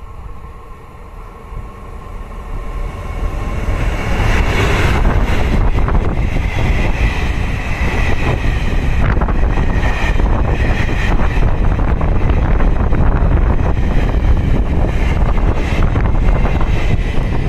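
A Taiwan Railways E200-class electric locomotive (E212) hauling a rake of passenger coaches approaches and passes close by. A rumble rises over the first few seconds into a loud, steady rush of steel wheels on rail, with occasional sharper clacks as the coaches roll past.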